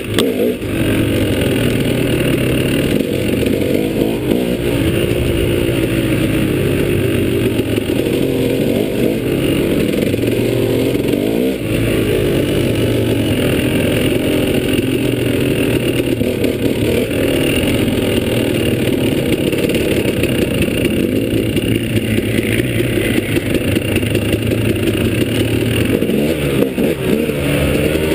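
Dirt bike engine running under load as it is ridden over a rough trail. Its pitch rises and falls again and again as the throttle opens and closes and the gears change.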